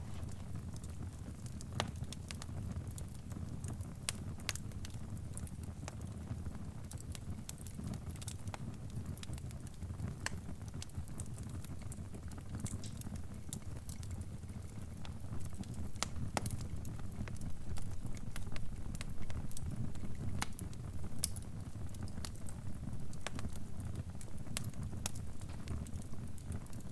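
Crackling fire: a steady low rumble of burning with scattered sharp pops and crackles, coming a little more often in the second half.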